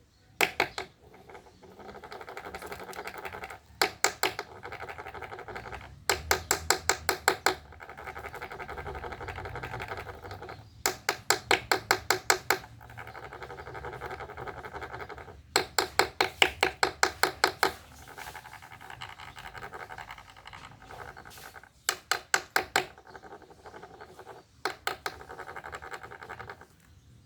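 Rhythmic scraping and rasping. Runs of quick, even clicks, about six a second, come every few seconds, with a steady rasp between them.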